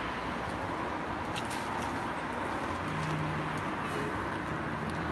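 Steady outdoor street ambience with a distant traffic rumble, and a low steady hum joining about three seconds in.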